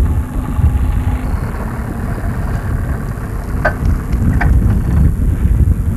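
Off-road 4x4's engine idling with a steady low rumble. Two short, sharp clanks come about three and a half and four and a half seconds in.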